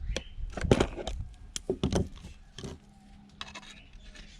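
Irregular clicks, knocks and scrapes of hands and tools handling the parts of a Bluetooth speaker during a teardown, as a small piece is taken off its circuit board; busiest in the first three seconds, quieter after.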